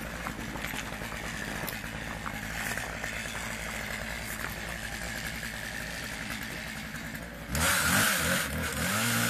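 An engine running steadily at idle, then revving up and down, louder, about seven and a half seconds in.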